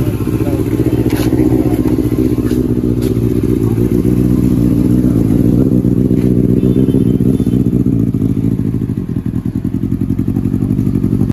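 Benelli TNT 600i's inline-four engine running steadily, heard through its twin underseat exhausts.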